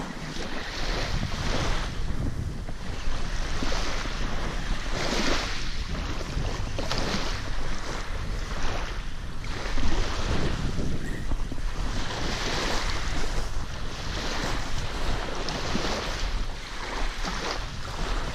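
Wind buffeting the microphone in gusts, with a heavy low rumble, over small waves lapping on a pebble beach.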